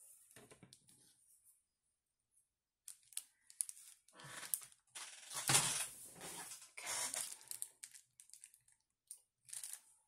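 Clear plastic rhinestone sheets crinkling and rustling as they are handled, in a short burst at first and then a longer run of bursts, loudest around the middle.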